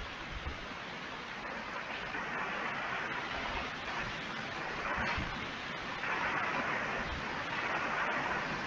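Steady hiss of noise heard over a video-call audio feed, swelling a little now and then, with no voice.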